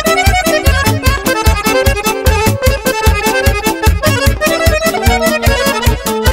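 Fast instrumental Romani dance music: an accordion plays the melody over a steady, driving beat and bass.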